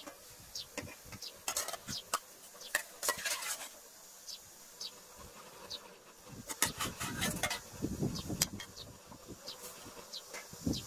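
Insects buzzing, with many short high chirps that fall in pitch, over scattered clicks and clatter from cooking work at a metal pot, busiest about a second and a half in and again past the middle.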